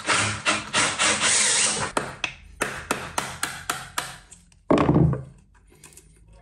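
Chisel cutting into a softwood post to make room for a cabinet door hinge: a couple of seconds of steady scraping, then a run of quick taps and scrapes as the wood is pared away, and one heavier knock about five seconds in.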